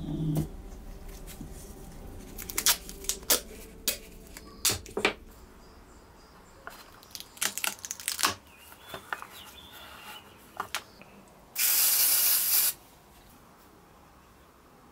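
A roll of adhesive tape rolls briefly on a wooden bench, then hands handle tape and a clear plastic windshield with scattered light taps and clicks. Near the end comes a loud, even hiss lasting about a second.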